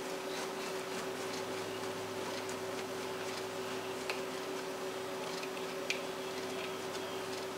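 Cheese being grated by hand on a stainless steel box grater: faint, irregular scraping strokes with a couple of sharper clicks about four and six seconds in, over a steady background hum.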